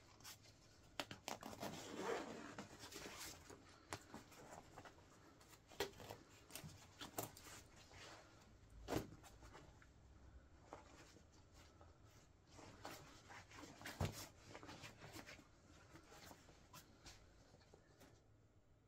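Faint rustling and scraping of a Wellensteyn Schneezauber jacket being handled, broken by scattered sharp clicks and knocks. The strongest knocks come about nine and fourteen seconds in.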